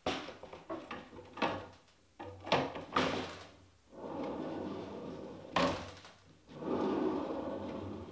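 Sliding barn door on an overhead rail being pushed back and forth: several sharp knocks as it is handled and stops, and in the second half two longer runs of the rollers rumbling along the rail.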